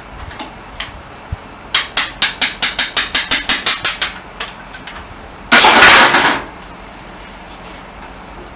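About fourteen quick, light hammer taps on metal, roughly six a second, each with a short metallic ring. A few seconds in comes a loud hiss of noise lasting under a second, then only low background.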